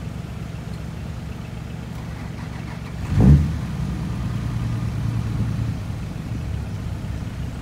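Heavy diesel engine of earthmoving machinery running steadily with a low hum. A sudden loud low thump comes about three seconds in, and the engine runs a little louder for a couple of seconds after it.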